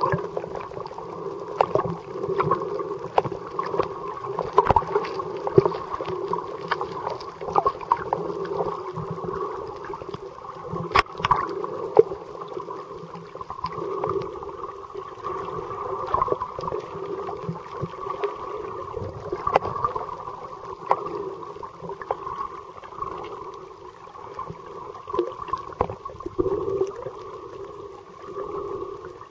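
Muffled underwater noise picked up by a submerged camera: a steady water rumble with scattered clicks and knocks.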